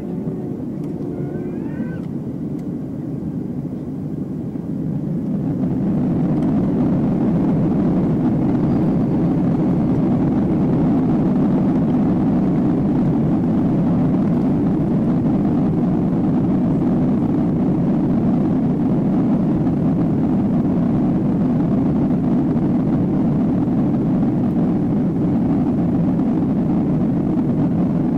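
Boeing 767-300ER's jet engines heard from inside the cabin behind the wing, spooling up to takeoff power: a rumble that swells sharply about five seconds in, then holds steady and loud.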